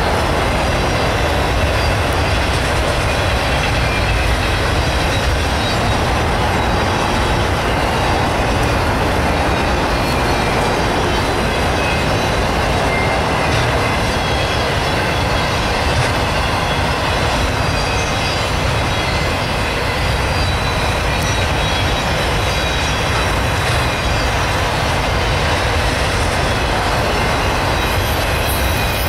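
Union Pacific autorack freight train rolling past: a steady, unbroken rumble of cars and wheels on the rails, with a faint high squeal from the wheels.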